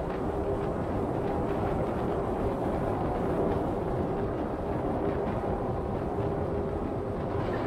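Steady road noise of a car driving: tyres running on grooved concrete pavement, with a faint constant hum.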